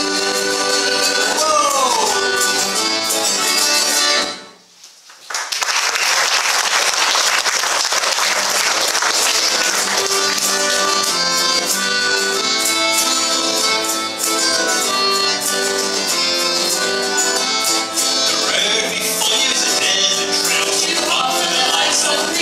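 Live folk band playing: piano accordion over strummed acoustic guitar, with a voice coming in near the end. The sound cuts out for about a second roughly four seconds in, then the music carries on.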